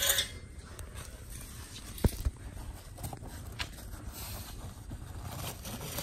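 Dirt and concrete rubble scraping and shifting as pieces of old, badly corroded cast iron drain pipe are pulled out of a trench by hand, with a couple of sharp knocks about two seconds in and a lighter click a little later.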